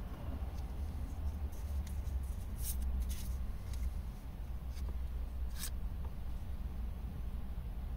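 Pokémon trading cards being handled and slid from the front of the stack to the back, giving a few short card swishes, a cluster of them about two to three seconds in and one more just past the middle. A steady low car-cabin rumble runs underneath.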